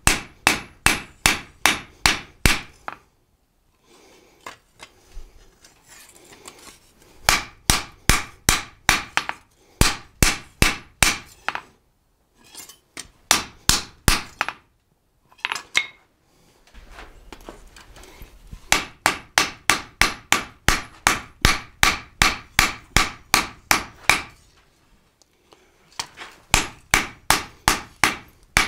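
Hand hammer striking hot leaf-spring steel on an anvil in runs of quick, bright blows, about three a second, with short pauses between runs, as the tangs of a forged blade are tapered.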